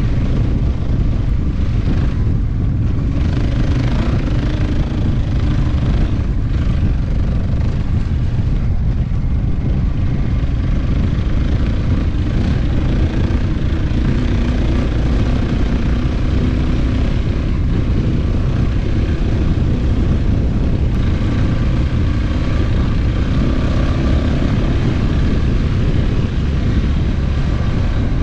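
KTM 690 Enduro's single-cylinder engine running steadily under way, its pitch shifting a little with the throttle, under a heavy low rumble of wind on the microphone.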